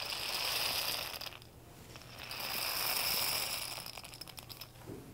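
Homemade rain stick, a paper-towel cardboard tube with nails pushed through it in a helix and filled with dried pinto beans, tipped twice. Each time the beans rush down the tube, clicking against the nails in a dense rattle that swells and dies away over about two seconds. A few last stray clicks come near the end.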